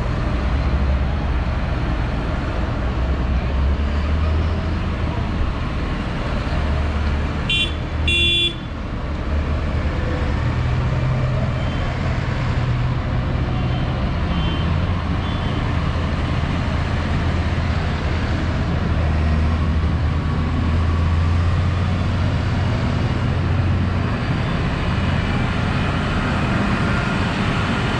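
Diesel farm tractors running as they drive past one after another, a steady low engine drone. A vehicle horn gives two short toots about eight seconds in.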